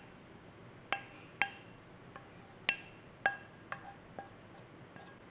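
A spatula knocking against the rim of a metal frying pan, about six sharp ringing clanks at uneven intervals, plus a few fainter taps, as saucy noodles are scraped out onto a plate.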